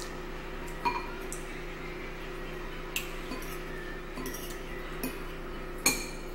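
Metal forks clinking against bowls while eating: three sharp clinks, about a second in, near the middle, and the loudest near the end, over a steady low hum.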